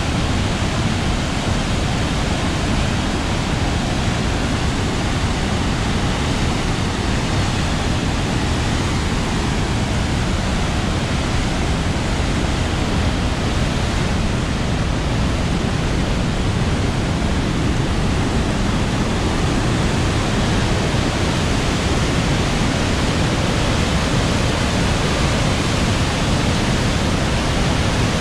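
Augrabies Falls on the Orange River in flood: a huge mass of water pouring over the falls in a loud, steady rush of noise, heaviest in the low end.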